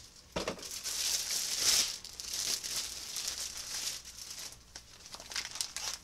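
Plastic vacuum bag crinkling and rustling as it is handled and unfolded, in irregular spells that are loudest in the first two seconds.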